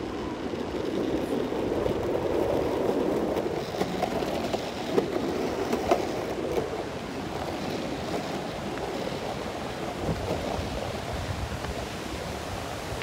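Longboard wheels rolling over rough asphalt: a steady rumbling hiss that swells over the first few seconds and eases after about seven. A few sharp ticks come through in the middle.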